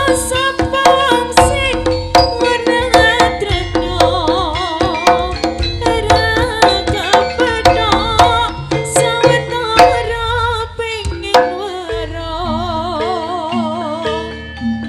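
Live Javanese jaranan ensemble music: hand drums beat a busy rhythm under a loud, wavering melody line.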